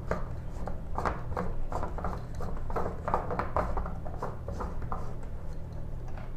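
Plastic screw cap of a reverse-osmosis membrane housing being unscrewed by hand: a run of short, irregular clicks and scrapes as the plastic threads turn, over a steady low hum.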